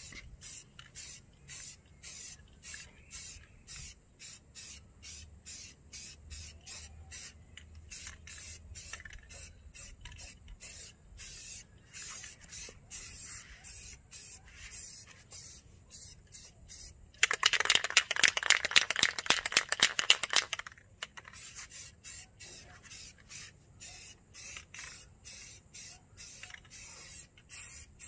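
Aerosol can of Rust-Oleum gray spray paint hissing in quick short bursts, about two or three a second, as paint is sprayed into a honeycomb truck grille. Past the middle comes a much louder rattle lasting about three seconds: the can being shaken, its mixing ball rattling.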